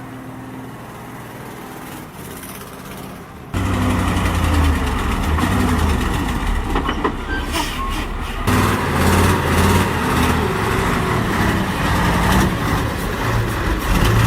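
Heavy truck engine running under load: a quieter low drone that jumps abruptly, about three and a half seconds in, to loud, pulsing engine noise with clattering and knocks.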